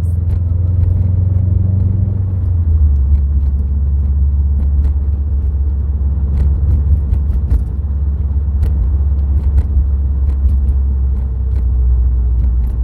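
Subaru WRX STI's turbocharged flat-four and tyres giving a steady low rumble while driving on a snowy road, with scattered sharp ticks over it. The engine note steps down about two and a half seconds in.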